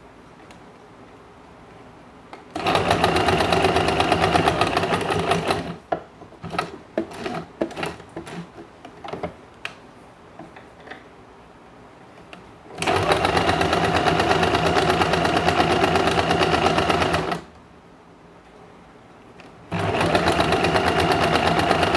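Usha Janome Dream Stitch electric sewing machine stitching fabric in three runs of steady, fast needle strokes, with short pauses between them filled with small clicks and fabric handling.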